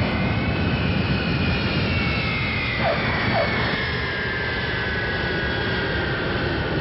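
Jet airliner sound effect: a steady rushing engine drone with a high whine that slowly falls in pitch.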